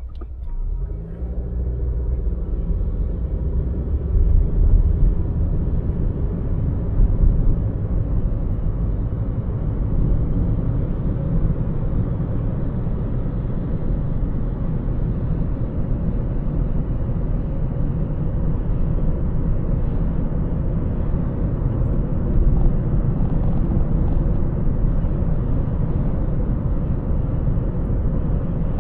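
Car driving on a city road: a steady low rumble of road and engine noise that builds over the first couple of seconds as it picks up speed.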